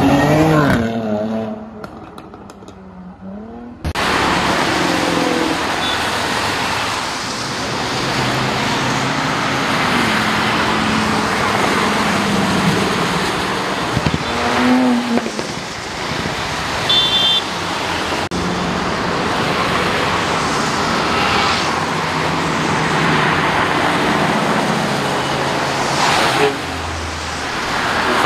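A sports car's engine revving as it pulls away. From about four seconds in comes a steady hiss of cars driving on a wet road, with engines running under it.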